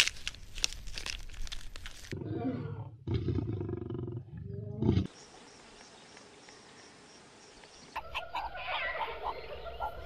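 A run of separate wild animal recordings. Crackling clicks come first, then low growl-like calls for about three seconds, then a quiet stretch, and short chirping calls near the end.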